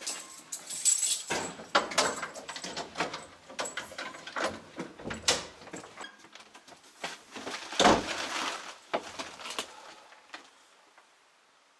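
A door being handled: rattling, clicks and knocks from the door and its handle, with one loud heavy thump about eight seconds in.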